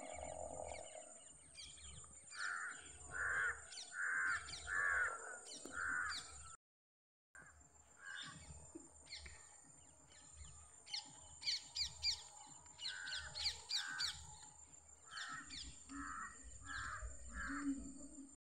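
Birds calling: a run of about five harsh calls, evenly spaced, then quick high chirps, then another run of harsh calls near the end.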